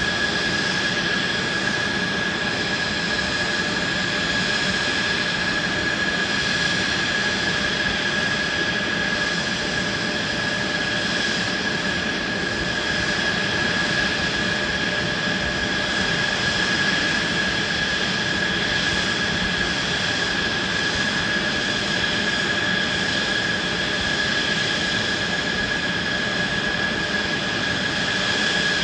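Mitsubishi F-2 fighters' General Electric F110 turbofan engines idling on the ground, a steady high whine over an even rushing noise.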